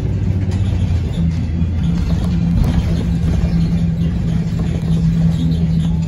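Blue Bird Vision school bus running along the road, heard from inside the bus: a steady low engine hum that steps up in pitch about a second in, over road noise and light clicks.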